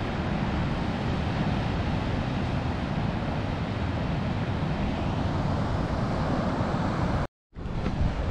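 Wind buffeting the microphone over the steady wash of surf breaking on a beach. The sound drops out for a moment about seven seconds in, then carries on.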